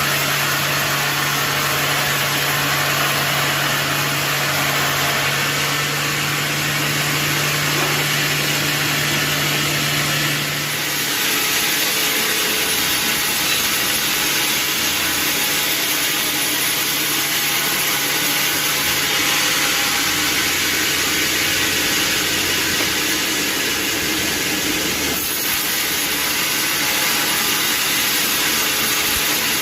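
Sawmill machinery running steadily, a loud motor drone under a strong hiss, with a low hum dropping out about eleven seconds in.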